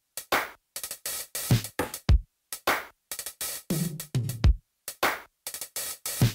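Background music: an electronic beat with drum-machine hits and deep kicks, chopped into short bursts with abrupt gaps of silence between them.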